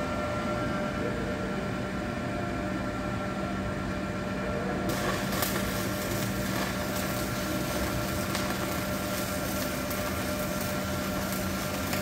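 Stick-welding arc from an ARC-200 inverter welder crackling and hissing irregularly, starting about five seconds in, over a steady machine hum. The arc is drawing around 180 to 200 amps, near the machine's top setting.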